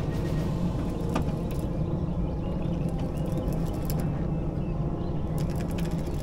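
Small outboard motor running steadily at slow trolling speed, a low even hum. A few light clicks near the end.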